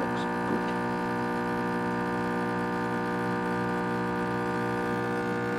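Espresso machine's pump humming steadily while it pulls a double espresso shot into two glasses.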